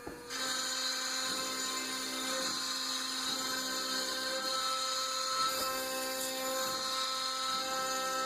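TT1210 Rhino CNC router running: a steady machine whine made of several held tones. It starts just after a brief pause with a click.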